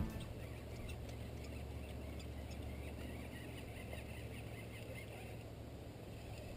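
Quiet outdoor ambience on a river: a steady low hum with faint scattered high chirps.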